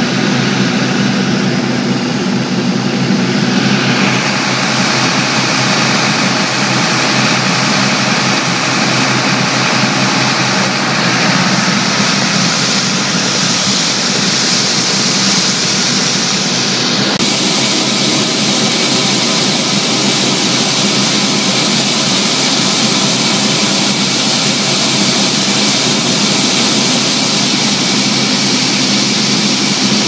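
New Holland TR98 combine's diesel engine and threshing machinery running steadily under load while its unloading auger empties soybeans into a truck. The even, loud drone shifts abruptly in tone about four seconds in and again just past halfway.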